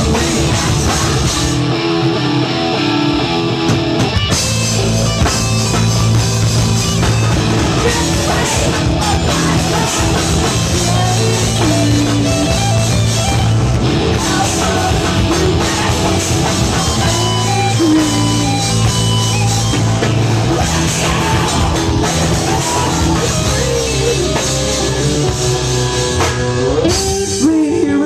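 Live rock band playing loud: electric guitars, bass and drum kit together. The low end drops away for about two seconds near the start, then the full band comes back in.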